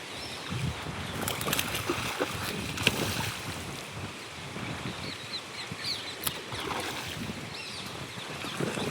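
Outdoor riverbank ambience: wind buffeting the microphone, a few sharp clicks in the first third and another a little past the middle, and short high chirps from birds in the second half.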